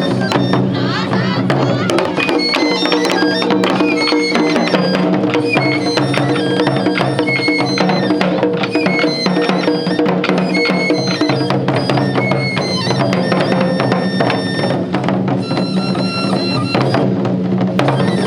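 Japanese taiko drum ensemble performing, with rapid drum strikes throughout under a high stepped wind melody and a steady low sustained tone.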